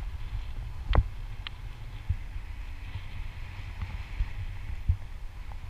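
Wind buffeting the microphone of a camera carried by a parasail high above the water: a steady low rumble, with a few sharp knocks, the loudest about a second in.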